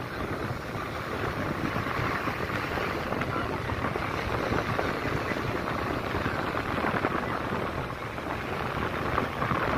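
Seashore ambience: surf breaking steadily, with wind rumbling on the microphone and faint voices in the background.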